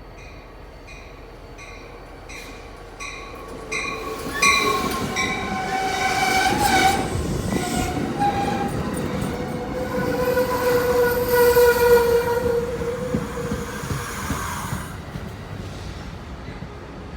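Rapid, evenly repeated dinging, then a train passes close by. A train horn sounds two long blasts, the first about four seconds in and the second about ten seconds in, over the rumble of the train, which fades near the end.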